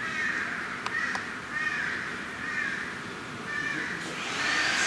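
A bird calling over and over, a harsh call about once or twice a second, with two sharp taps about a second in. Near the end a motor winds up into a rising whine that levels off.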